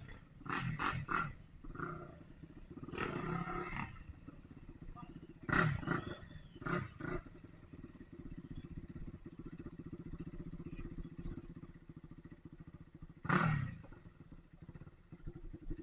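Dirt bike engine running at low revs with an even pulsing rumble, blipped up in several short revs.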